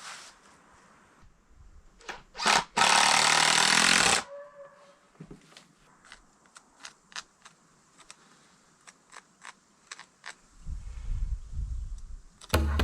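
A power carving tool runs in one short burst of about a second and a half, after two brief blips. Scattered light taps and clicks follow, and music begins right at the end.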